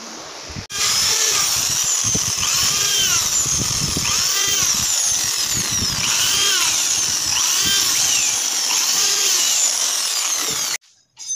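Corded electric drill boring into the edge of an MDF board, its whine rising and falling in pitch again and again as the motor speeds up and slows down. It starts abruptly under a second in and cuts off suddenly near the end.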